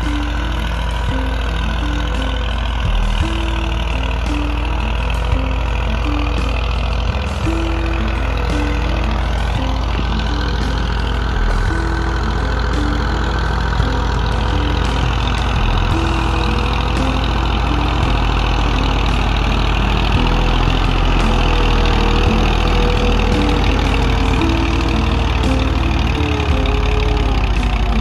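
Farm tractor's diesel engine running steadily under load as it pulls a tine cultivator through the soil, growing a little louder in the second half as it comes closer.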